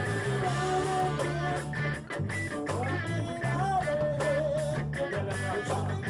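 Live reggae band playing: a steady bass line and drums under electric guitar and keyboard, with a wavering sung melody above. The music drops out briefly about two seconds in.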